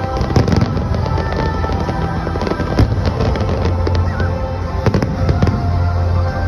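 Fireworks going off in a display: repeated sharp bangs and crackles, several a second at times, over music with a steady bass.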